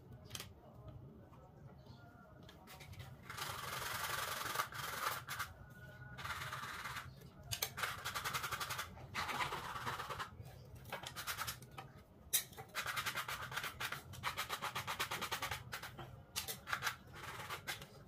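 Hand rubbing and scraping on a small wooden bird-cage frame: a run of scratchy bursts with a fast grating texture, starting a few seconds in, with one sharp tap about twelve seconds in.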